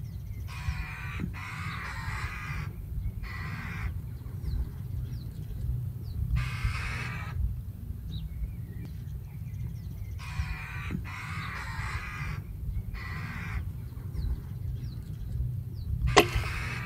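Corvids giving a series of harsh caws, about seven calls of half a second to a second each, over a low rumble. Near the end a single sharp crack: the .22 Brocock Ranger air rifle firing at a jackdaw on the maize.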